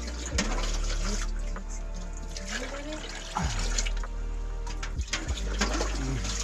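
Water pouring and sloshing at a large metal pot still for distilling raksi, with a few sharp knocks and a steady low hum underneath.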